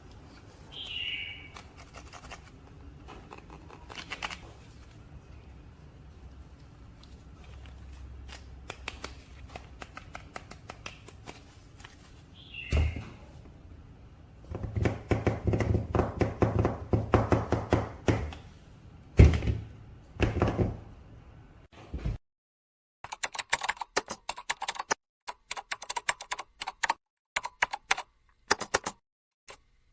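Clicks, knocks and rustling from hands handling toy packaging and plastic parts, with a dense run of clatter a little past halfway. About three-quarters of the way in the sound cuts out and gives way to rapid computer-keyboard typing clicks in short runs.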